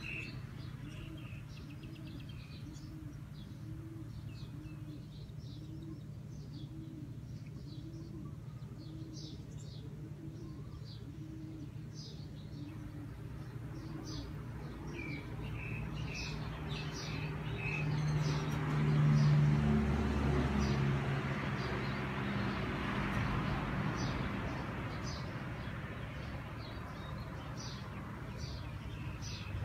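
Small birds chirping at intervals over a low steady hum, with a low rumble that swells and fades about two-thirds of the way through.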